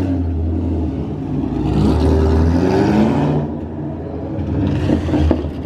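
Car engine running with a deep rumble, revving up and easing back about two seconds in.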